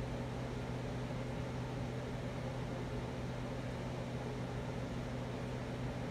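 Spirit box scanning radio stations: a steady hiss of static over a constant low hum.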